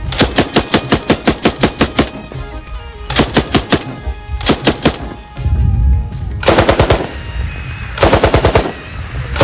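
M60 general-purpose machine gun firing 7.62 NATO on full auto in five bursts, a long burst of about two seconds first, then four short ones.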